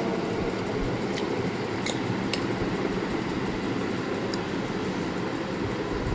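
Steady low rumbling background noise, with a few light clinks of a metal fork against the plate.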